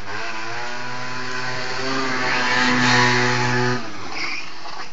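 Motorbike engine accelerating: its pitch climbs over the first two seconds, holds higher and louder, then cuts off abruptly a little before four seconds in.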